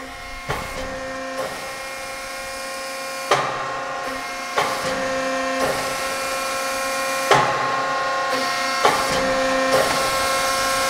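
Accurpress 175-ton CNC hydraulic press brake cycling: a steady hydraulic whine with several tones that grows slowly louder, broken by a sharp knock every one to three seconds as the machine steps through its cycle.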